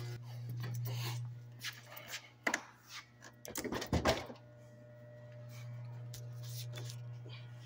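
A few scattered knocks and rustles, the loudest cluster about four seconds in, over a steady low hum in a small room.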